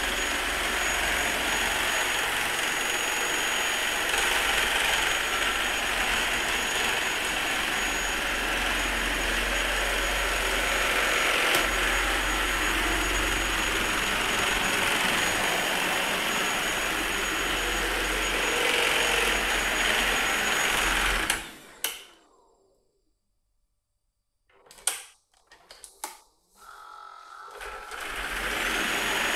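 Vorwerk Kobold VK7 cordless vacuum cleaner running, a steady rush of air with a thin high whine. About three-quarters of the way in it is switched off and goes quiet apart from a few clicks and knocks, then it starts up again near the end.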